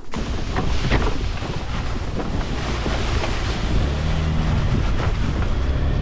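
Wind buffeting the microphone of a moving scooter, a dense steady rush, with the scooter engine's low hum coming through more clearly from about four seconds in.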